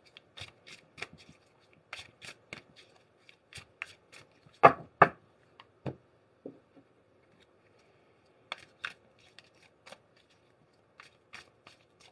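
A tarot deck being shuffled by hand: a run of light riffling clicks and card taps, with two louder knocks about five seconds in and a pause of a couple of seconds after the six-second mark before the clicking resumes.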